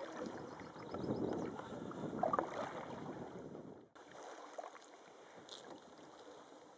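Water swishing and splashing around a canoe as it is paddled. The sound drops suddenly about four seconds in to quieter water lapping.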